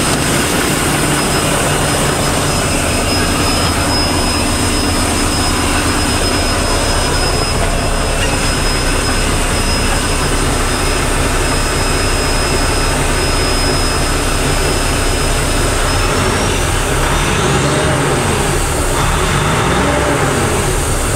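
2014 Mack TD713 truck's diesel engine idling steadily, with a high whine over it. About three-quarters of the way through, it is revved up and down a few times, and the whine rises with it.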